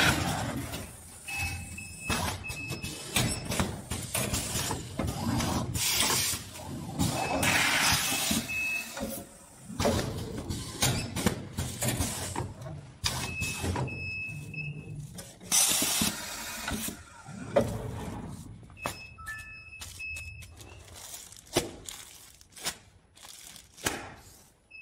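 Automatic garment folding and bagging machine running, with repeated hissing air blasts and clacks from its pneumatic cylinders over a low motor and conveyor rumble. Short high-pitched tones sound now and then.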